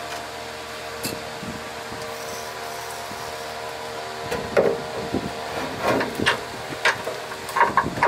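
Knocks and clatter of a train-horn air compressor and its metal mounting bracket being handled and set against a truck's underside, the sharp hits coming mostly in the second half. Under them, a steady hum with several held tones, like an electric floor fan running.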